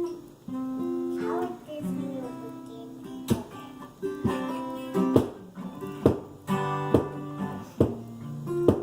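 Acoustic guitar playing a song: held, ringing chords with sharp strummed strokes recurring about once a second from about three seconds in.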